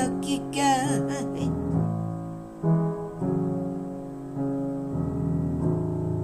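Piano chords ringing out and changing about once a second, growing steadily quieter as the song ends, with a brief sung vocal sound in the first second or so.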